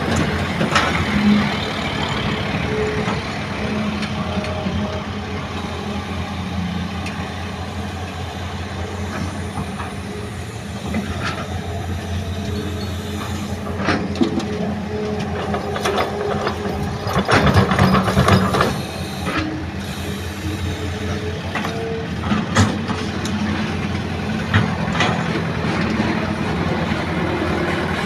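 Hitachi hydraulic excavator's diesel engine running steadily as it digs and swings, with scattered knocks of the bucket. A little past halfway comes a loud rattling rush of soil and stones dropped into the steel bed of a dump truck.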